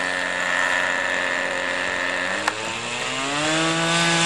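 Small engine of a radio-controlled model airplane running in flight with a steady buzz; about three seconds in its pitch climbs and it gets louder. A single sharp click comes just before the rise.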